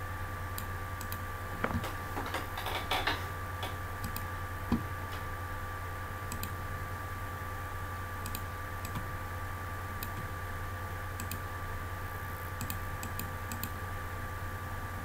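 Scattered light clicks of a computer mouse and keyboard over a steady electrical hum, with a short run of louder clatter about two to three seconds in and a single knock a little before five seconds.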